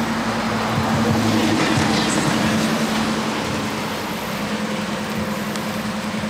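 Street traffic: a vehicle passing on the road, swelling a second or two in, over a steady low hum.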